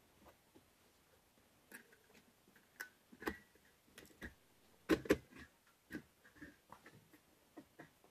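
Irregular light clicks and taps as a scroll saw blade is fitted into its clamp and a thin plywood workpiece is handled on the saw's plywood table, with a cluster of louder taps about five seconds in. The saw motor is off.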